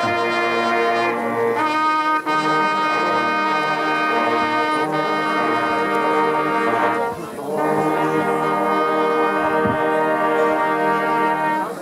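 Brass instruments playing slow, long held chords in a solemn, fanfare-like piece, with a brief dip about seven seconds in; the music ends just before speech begins.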